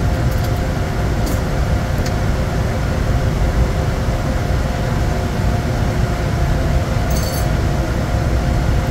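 Steady cockpit noise of a Bombardier Challenger 350 jet: a dense low rumble of airflow and engines with a few steady hums. A few light clicks sound through it, with a short rattle about seven seconds in.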